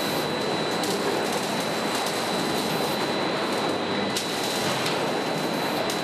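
Steady machinery din of a car-body assembly line, with a thin high whine held at one pitch and a few faint clicks and knocks.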